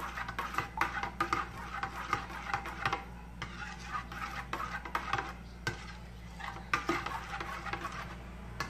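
Metal spoon stirring a thick tapioca-starch slime mixture in a stainless steel bowl, scraping and clinking against the bowl in quick, irregular strokes.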